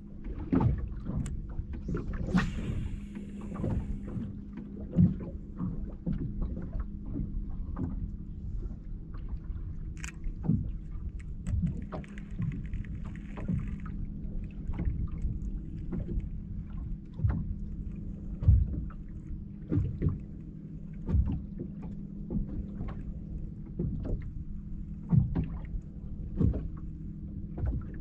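Small waves lapping and slapping against the hull of a drifting skiff in frequent, irregular knocks, over a steady low hum.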